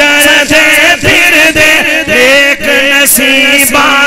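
A man singing a Punjabi naat into a microphone, amplified, with wavering held notes and no break.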